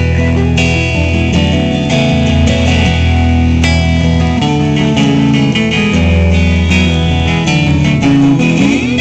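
Live band jamming an instrumental passage, led by two electric guitars played through small amps. A note slides in pitch near the end.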